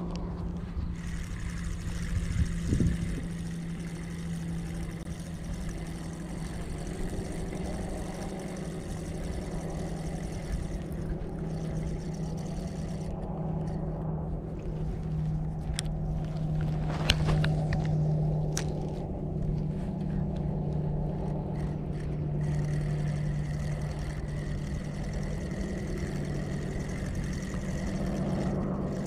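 Steady low mechanical hum, like a motor running, with a few faint clicks and knocks.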